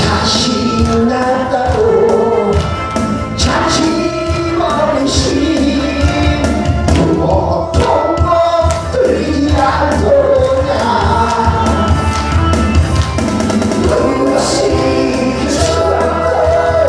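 A man sings a Korean song into a handheld microphone over a backing track with a strong bass and a steady beat.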